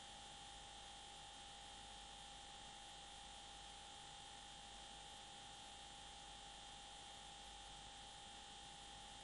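Near silence: a faint, steady hum and hiss with nothing else heard.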